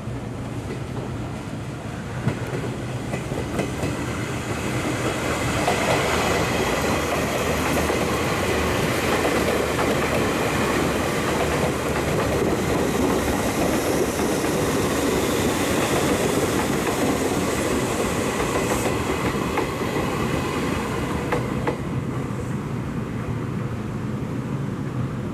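Electric train running through the station, its wheels clattering over the rail joints with a thin high tone over the noise. It builds up over the first six seconds, holds steady, then eases off near the end.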